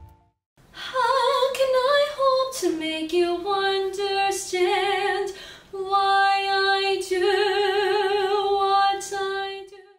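A girl singing a solo melody unaccompanied, starting about a second in, with long held notes that waver with vibrato.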